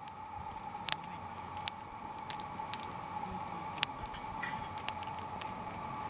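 Split firewood burning in a small fire pit, crackling with sharp, irregular pops over a low hiss. The loudest pops come twice in quick succession about a second in and once near four seconds in.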